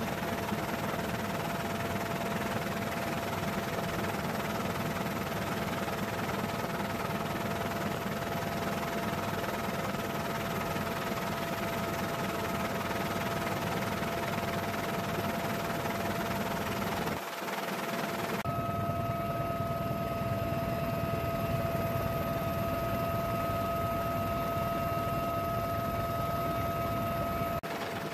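Helicopter in flight, heard from inside its cabin with the door open: a steady loud rush of turbine and rotor with a constant high whine. The sound dips briefly about two thirds of the way through, then carries on.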